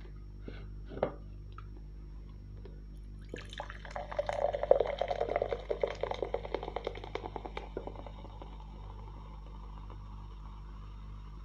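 Cola poured from a can into a glass beer mug. After a sharp click about a second in, the pour starts about three and a half seconds in with loud splashing and crackling fizz. It eases after about eight seconds into a thinner stream and a steady fizzing hiss from the foaming head.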